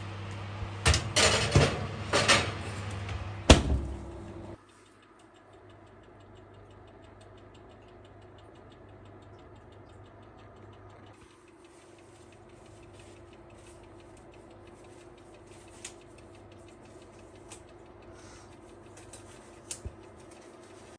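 A kitchen appliance hums steadily while dishes or a tray clatter and knock a few times; the hum cuts off suddenly about four and a half seconds in, leaving a faint, fast, even ticking with a few small clicks.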